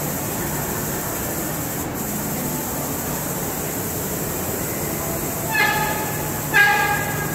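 Flipdot display panels clattering steadily as their dots flip to redraw the pattern, over a steady low hum. Near the end, two short horn-like tones sound about a second apart.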